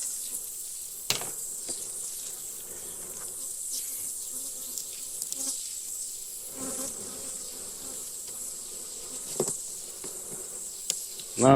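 Honeybees buzzing at an opened hive, with two short knocks or clicks, about a second in and near the end, of the hive tool or frames being handled.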